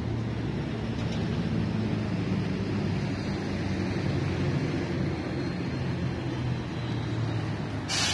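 Road traffic: a motor vehicle's engine hums steadily and low, over general traffic noise. Near the end there is one short, sharp hiss.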